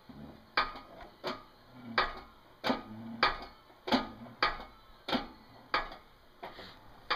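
A steady series of sharp clicks, about one every two-thirds of a second, from a front wheel hub bearing assembly being worked in a shop press as it is pressed back together after repacking.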